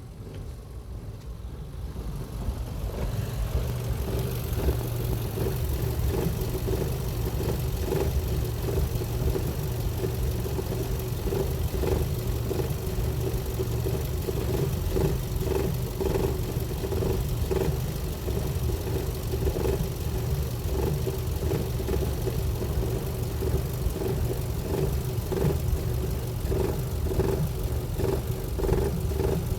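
1998 Ford Focus 1.6 16v four-cylinder engine running steadily, with a strange noise of repeated short pulses coming irregularly over the engine note, which the owner suspects is plastic parts rubbing in the engine bay.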